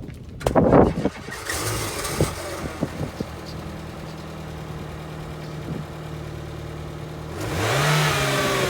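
Car engine starting with a loud burst, then idling steadily. About seven and a half seconds in, it revs up, rising in pitch and getting louder.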